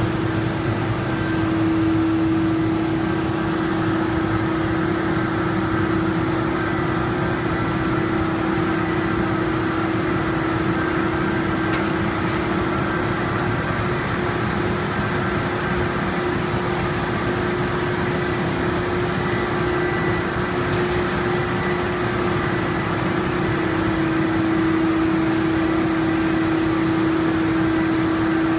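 Steady hum of factory machinery: one constant tone over an even drone, with no distinct strokes or changes.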